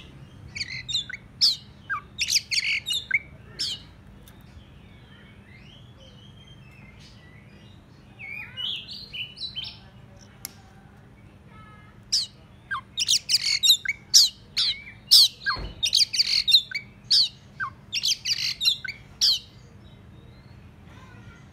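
Oriental magpie-robin singing in bursts of sharp whistled notes mixed with harsh, scratchy notes. It gives a short run of song, a few quieter phrases after a pause, then a longer, denser run near the end. This is the loud, excited song that bird keepers use to call out rival magpie-robins.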